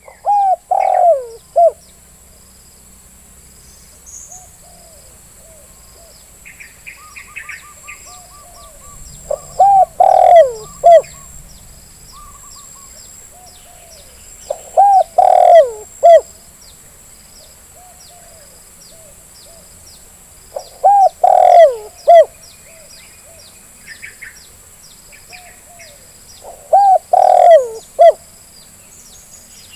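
Spotted dove (terkukur) cooing: five loud coo phrases spaced about five to six seconds apart, each a few notes over about a second and a half. Small birds chirp faintly and steadily in the background.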